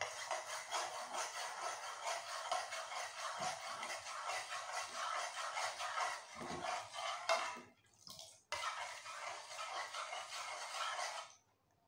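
Metal spoon stirring fast in an aluminium saucepan, scraping and clinking against the pot's bottom and sides. There is a short break about eight seconds in, and the stirring stops just before the end.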